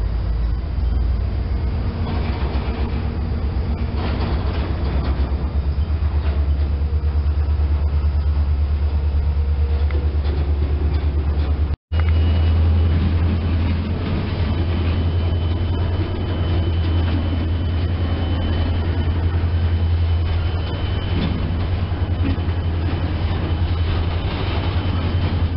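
A cut of freight boxcars rolling slowly past, steel wheels on the rails making a steady low rumble. The sound breaks off for a moment halfway through, and a thin steady high tone runs under the rumble in the second half.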